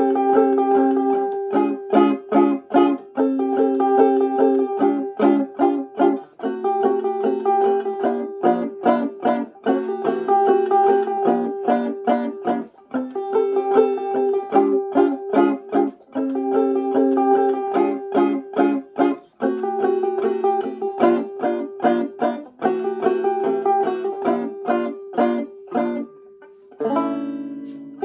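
Five-string banjo played clawhammer style: a quick, even run of plucked notes in an old-time hoedown tune over a ringing drone note. Near the end the playing breaks off and a final chord rings out and fades.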